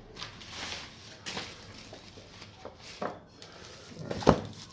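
Handling noise from a package being unboxed: scattered rustles and light knocks, with one sharper knock about four seconds in.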